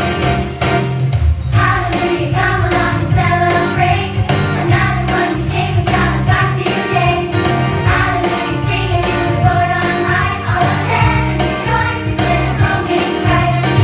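A children's choir singing an upbeat song over loud accompaniment with a steady bass beat.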